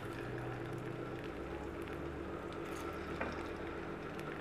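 Pieces of salted Spanish mackerel sizzling steadily in hot oil in a wok, with a short click about three seconds in.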